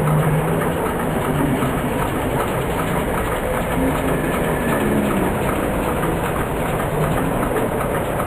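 Steady street traffic noise: vehicle engines running and idling close by, without a break.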